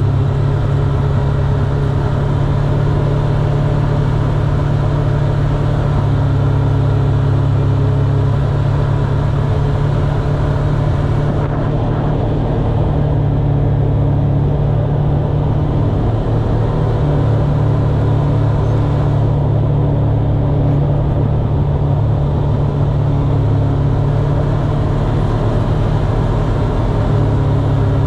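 Steady low vehicle rumble, even in level.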